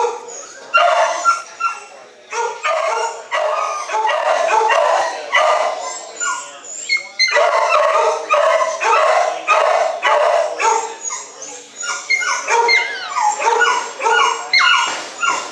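Shelter dogs barking and yelping in their kennels, the calls overlapping almost without a break, with several sliding whines in the last few seconds.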